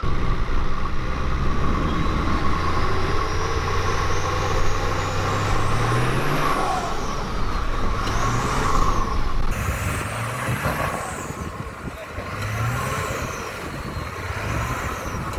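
A four-wheel-drive truck's engine working hard and revving repeatedly, with five rising-and-falling surges in its second half, as the truck is driven out of a bogged silt hole.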